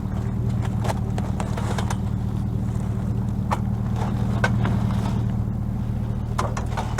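A motor vehicle engine idling steadily, with scattered light knocks and rustles of items being handled and moved.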